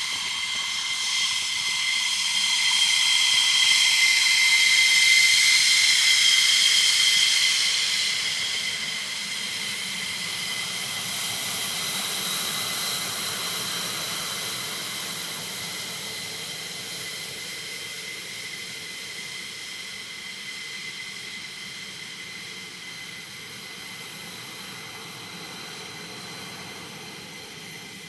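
F-15's twin Pratt & Whitney F100 turbofan engines whining at taxi power, a high steady whine over a rushing hiss. It swells to its loudest about five seconds in as the jet passes, then slowly fades.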